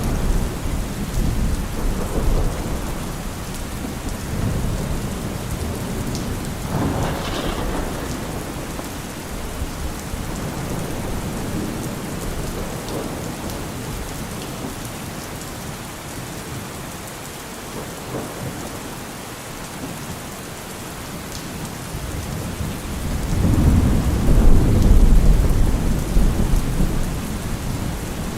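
Steady heavy rain falling, with rolling thunder. A long low rumble of thunder builds near the end.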